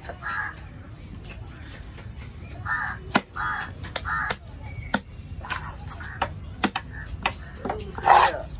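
Crows cawing in short repeated calls, with sharp knocks of a large fish-cutting knife striking a wooden chopping block now and then. The calls grow louder near the end.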